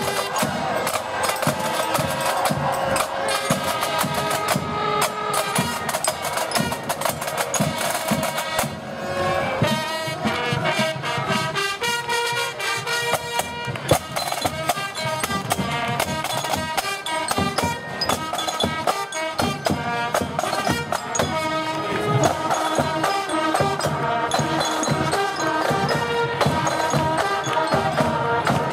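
Marching band playing in the street: snare and bass drums beating a steady march rhythm under a melody of changing pitched notes.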